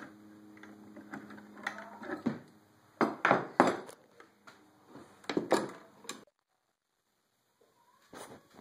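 Metal clinks and knocks from steel screw clamps being tightened and handled on a wooden glue-up, the loudest knocks coming about three to six seconds in. A low steady hum runs for the first two seconds, and the sound cuts out entirely for over a second near the end.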